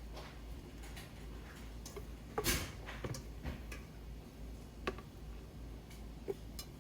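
Scattered light clicks and taps, with one louder knock about two and a half seconds in, over a steady low hum.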